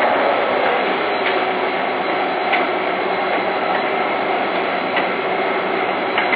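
Inverter-driven electric twin-shaft shredder running empty at low speed in energy-saving standby, its cutter shafts turning with a steady mechanical noise and a light click about every second and a quarter.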